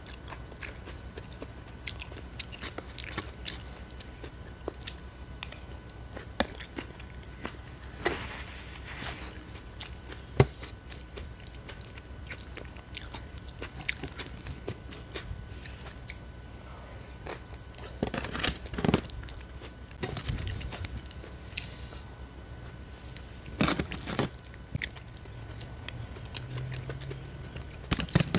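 Close-up chewing and crunching of a raw vegetable salad, coming in bursts of crisp crunching, with scattered sharp clicks of cutlery against the plastic container, the sharpest about ten seconds in.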